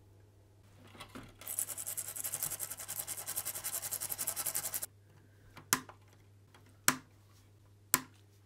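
Rapid scratching or scrubbing on a circuit board, about ten strokes a second for some three seconds, stopping suddenly, followed by three sharp clicks about a second apart.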